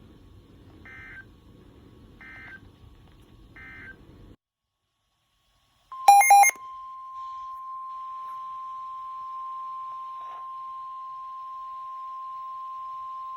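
Three short warbling data bursts of an Emergency Alert System end-of-message signal, about a second and a half apart, over faint radio hiss. After a short silence comes a brief loud distorted burst. Then the steady single-pitch NOAA Weather Radio alert tone, near 1 kHz, starts about six seconds in and holds.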